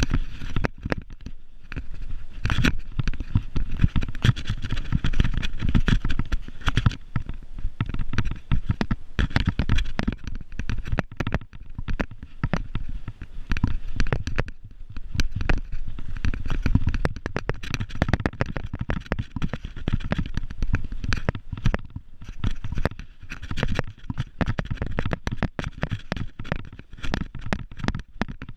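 Mountain bike clattering and rattling as it descends a rough, stony grass trail: a dense, irregular run of knocks and clicks from tyres hitting stones, chain slap and the frame jolting, over a steady low rumble.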